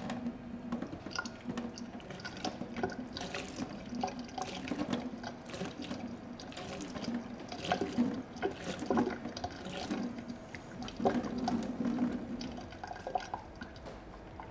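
A thin stream of water pouring from a gooseneck kettle spout into a stainless steel sink, splashing irregularly around the drain. The stream stops near the end, leaving a few drips.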